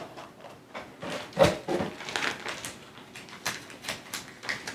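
Plastic lure bags and small cardboard lure boxes being handled on a table: scattered crinkles, rustles and light clicks, with one sharper knock about a second and a half in.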